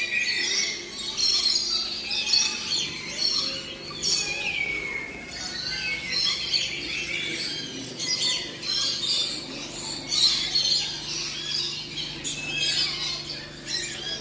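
Many birds chirping and squawking at once, a dense chorus of short, high, overlapping calls that rises and falls in loudness without a break.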